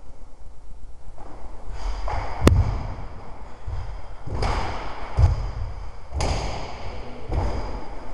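Karate kata practice: bare feet thudding and stamping on a gym floor and karate uniforms swishing with each technique, every second or so, with one sharp snap about two and a half seconds in.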